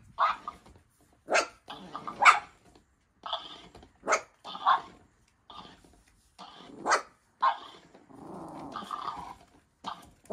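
Puppies barking at a plush toy in short, sharp barks, about a dozen at uneven intervals, with a longer growl about eight seconds in.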